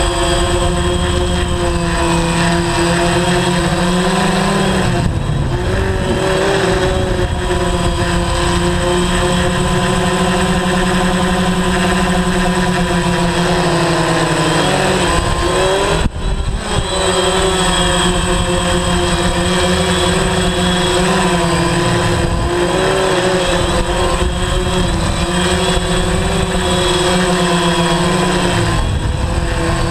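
DJI Phantom 3 quadcopter's propellers and motors whining in flight, a steady multi-tone hum whose pitch drifts up and down as the motors change speed. There is a brief sudden dip about halfway through.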